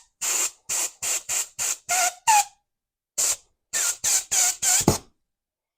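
Compressed-air blow gun fired in short hissing blasts into a motorcycle brake caliper's port to force a piston out of its bore, some blasts with a brief whistle. About a dozen blasts come in two quick runs with a pause near the middle.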